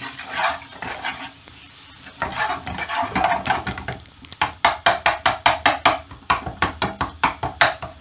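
Spices and onion sizzling in a hot pan as a utensil stirs and scrapes them; about halfway in it turns to quick, rhythmic scraping strokes against the bottom of the pan, about four a second. The spices are being dry-roasted for a curry sauce, moistened with a little water so they don't burn.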